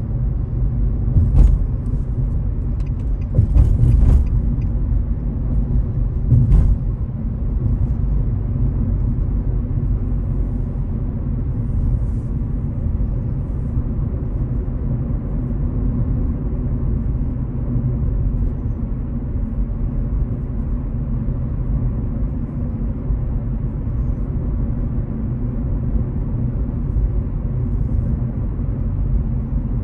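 A car cruising at a steady speed, heard from inside the cabin as a steady low rumble of engine and road noise. A few sharp knocks come during the first seven seconds or so.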